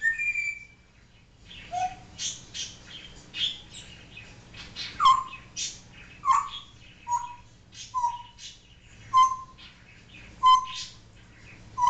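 African grey parrot making quick clicking sounds, then a run of short whistled notes repeated about once a second through the second half.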